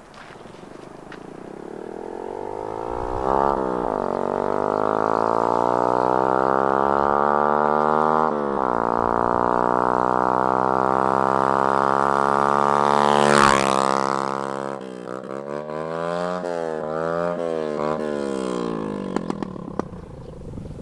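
Motorcycle with a loud homemade bamboo exhaust, accelerating toward the listener, its pitch climbing through the gears with two shifts. It passes close about 13 seconds in with a sharp drop in pitch, then moves away with a few blips of the throttle.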